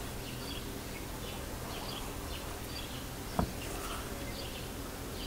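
Quiet background with faint, repeated bird chirps over a steady low hum, and one sharp click a little over three seconds in.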